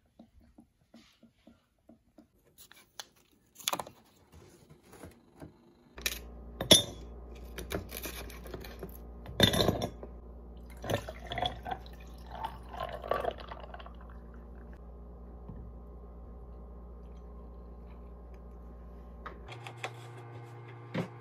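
Faint, quick ticks of a cat chewing a treat, then ice cubes dropped into a glass mason jar, knocking and clinking loudly against the glass, followed by liquid being poured in, over a steady low hum.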